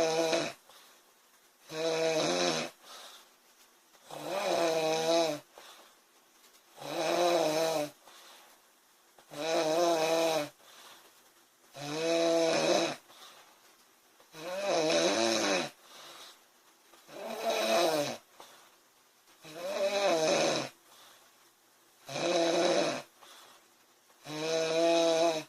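A woman snoring in her sleep: a steady run of about ten snores, one roughly every two and a half seconds, each lasting about a second, with quiet between them.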